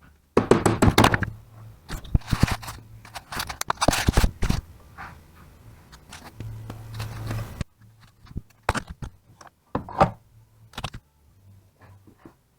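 Metal tools and alternator parts knocking and clattering on a workbench, in several bursts of sharp knocks, over a steady low hum that stops about seven and a half seconds in.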